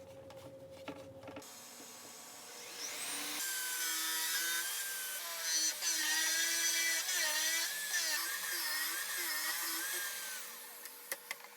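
Electric power tool working wood: the motor spins up with a rising whine, runs for about seven seconds with its pitch dipping and wavering as the bit takes load, then winds down near the end.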